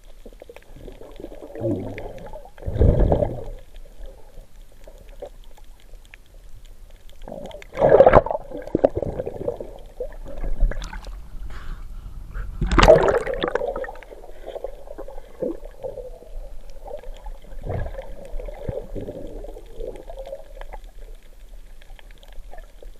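Muffled underwater sound picked up through a camera housing: water gurgling and sloshing, with a few louder dull knocks about three, eight and thirteen seconds in as the gloved diver handles the catch.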